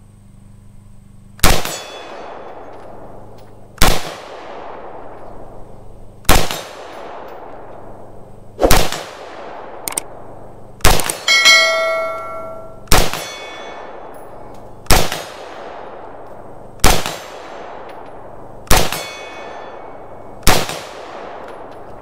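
IWI Tavor bullpup rifle fired in slow single shots, about ten, roughly two seconds apart, each crack trailing off in echo. Steel targets ring when hit, with one long, clear ring just after the middle.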